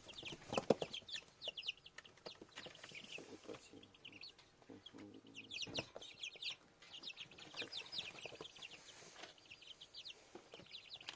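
A group of young chicks peeping continuously in quick, high, falling chirps. A few knocks stand out, the loudest about half a second in and another near six seconds.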